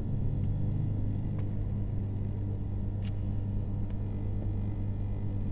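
Steady low hum, with a couple of faint light clicks about one and three seconds in.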